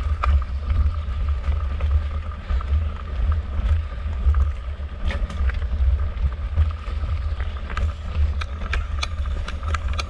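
Wind buffeting the microphone while a mountain bike is ridden, a heavy uneven rumble, with scattered sharp ticks and rattles from the bike that come more often in the second half.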